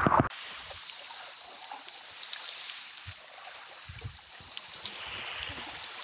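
Underwater ambience heard by a camera submerged in shallow sea water over a pebble bottom: a steady hiss with many small scattered clicks. A brief loud water rush opens it and cuts off sharply, and a few dull low thumps come about two-thirds of the way through.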